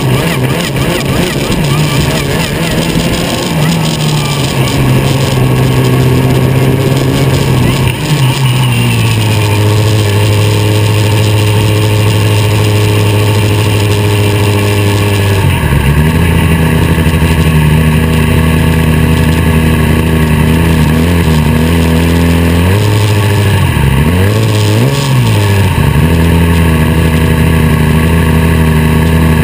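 Formula SAE race car's engine running at low revs right behind the onboard camera, steady for long stretches. Its pitch steps down twice in the first half, and near the end the revs dip and rise quickly.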